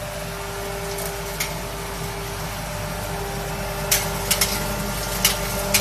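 Vertical feed mixer's electric motor running with a steady hum while ground corn meal pours from its discharge chute. A few sharp clicks and scrapes come about four seconds in and near the end.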